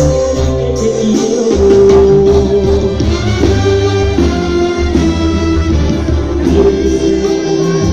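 Mexican banda playing live and loud: held brass chords over a sousaphone bass line.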